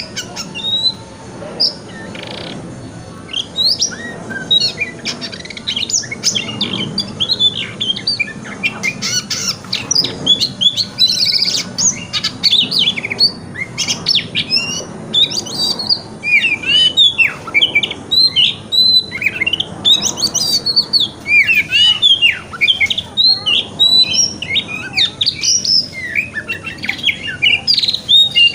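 Oriental magpie-robin (kacer) singing loudly and continuously: rapid, varied chirps mixed with short whistled slurs, in the twittering-and-ringing 'wikplong' style used as lure song to rouse a captive male.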